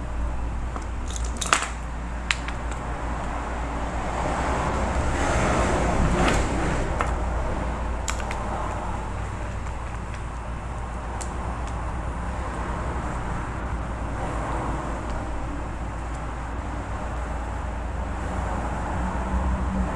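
Steady low background hum with a few sharp clicks and light handling noises, two of them close together near the start.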